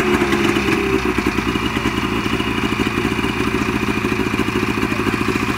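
Snowmobile engine idling steadily, a fast even pulsing.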